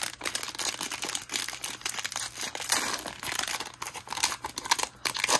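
Plastic wrapper of a basketball trading-card cello pack crinkling and tearing as it is pulled open by hand, a dense run of sharp crackles.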